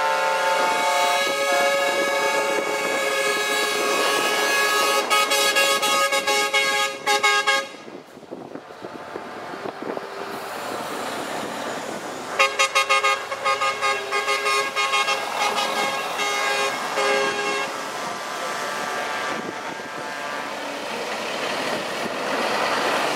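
Truck air horns sounding: a long sustained blast for the first seven seconds or so, then after a short lull a series of short stuttering toots followed by more held horn tones for several seconds.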